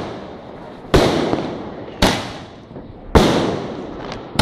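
A 120-shot firework cake firing its shells one after another: four sharp bangs about a second apart, each trailing off briefly.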